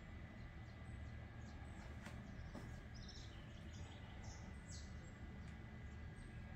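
Quiet background room noise with a steady low hum and a faint steady tone. A few faint, short high chirps come in around the middle.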